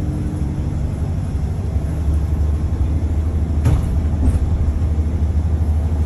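Steady low engine and road rumble heard from inside a moving bus, growing a little louder about two seconds in. A single short knock comes a little past halfway.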